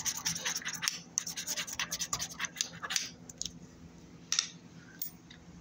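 Scratching the latex coating off a paper lottery scratch-off ticket: a quick run of short rasping strokes for about three seconds, then a few single strokes.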